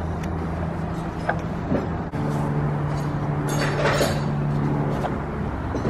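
Steady low machine hum, which changes pitch about two seconds in, under light clicks and a brief rubbing scrape as a spin-on fuel filter is threaded onto its filter head by hand.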